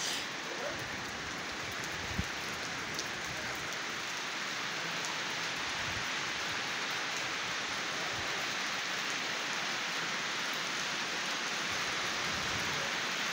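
Steady rain falling on a wet concrete rooftop, an even hiss of many drops. One brief low bump about two seconds in.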